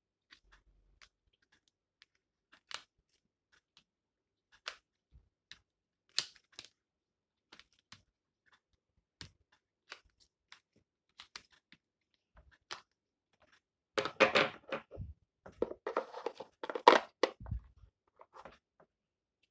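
Scattered small clicks and crinkles of a trading-card pack being handled, then near the end a few seconds of tearing and crinkling as the pack is torn open.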